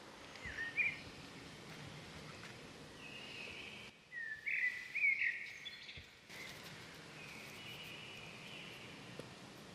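Birds chirping over a faint outdoor background: a couple of short chirps about half a second in, then a louder run of chirps between about four and five seconds in, with fainter drawn-out calls between.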